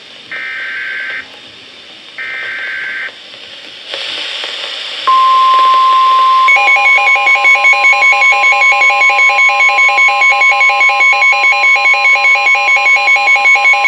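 NOAA Weather Radio SAME alert: two bursts of the warbling digital header tones, a short hiss, then the steady 1050 Hz warning alarm tone starting about five seconds in. About a second and a half later a rapid pulsing electronic beep, about five pulses a second, joins the tone and runs on under it.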